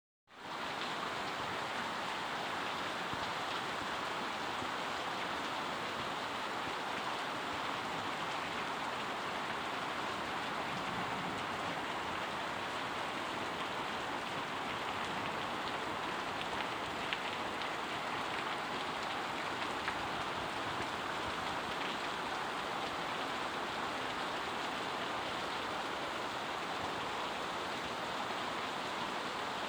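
Heavy rain falling steadily: an even, unbroken hiss of rain.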